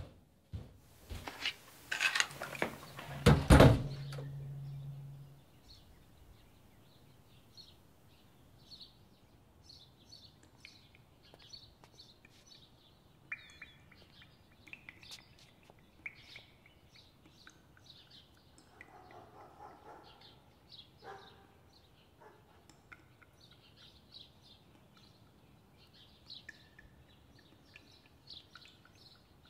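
A burst of loud knocks and clatter with a brief low hum in the first few seconds, then faint, scattered bird chirps that go on throughout the rest.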